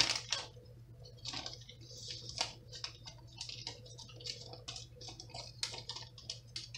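Peach, pectin and lemon-juice mixture in an enamelled cast-iron pot coming to a boil, its bubbles breaking in small irregular pops and ticks, over a low steady hum. A sharp click comes right at the start.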